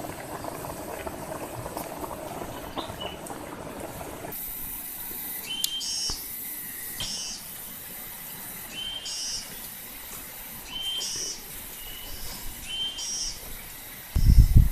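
For about four seconds, fish curry bubbling in a blackened wok over a wood fire. After that come short high calls, repeated about once a second, over a pulsing high hiss, and a loud low rumble shortly before the end.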